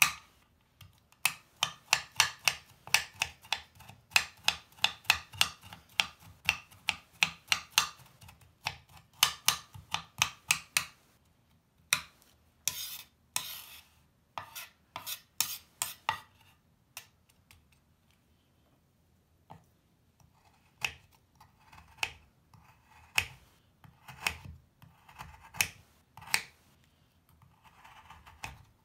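Kitchen knife chopping crumbly bubble bar on a cutting board, about three quick strokes a second. Around halfway it changes to a few longer scrapes as the blade sweeps the crumbs, then slower, softer cuts through a fresh bubble bar.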